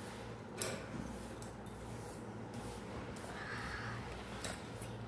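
Faint handling noise from a hand and a mechanical pencil moving over paper: a sharp click about half a second in, a brief soft hiss a little past three seconds, and another light click near the end, over low room tone.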